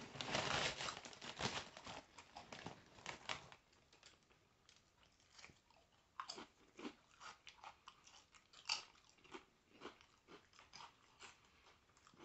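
Crunchy chip being bitten and chewed: a dense run of crunches for the first few seconds, then scattered single crunches.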